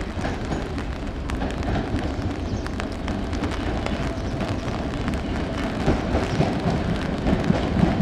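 Train of vintage 1960s R33/R36 New York City subway cars approaching out of a tunnel, its wheels rumbling on the rails. The rumble grows steadily louder as the train nears and is loudest in the last couple of seconds.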